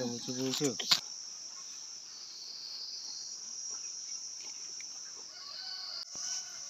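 Insects chirring in a steady, high-pitched drone. A short pitched call and a sharp click come about a second in, and a few faint short calls near the end.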